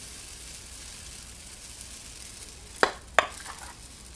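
Pancake batter sizzling quietly on a Presto electric griddle set to 250 as it is poured from a measuring cup. Two sharp taps come in quick succession about three seconds in.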